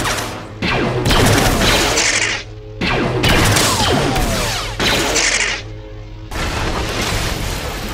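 Lightsaber soundboard playing the blaster-deflect effects of 'The Princess' sound font: a series of about four sudden zaps, each followed by falling laser whines, over the saber's steady hum.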